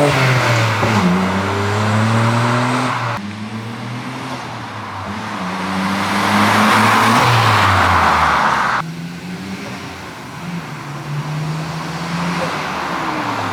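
Nissan Skyline GT-R R32's RB26DETT twin-turbo straight-six through an HKS Hi-Power 409 cat-back exhaust, driven under load in passes: engine pitch holds and climbs, then drops away, in three separate runs cut together about 3 and 9 seconds in.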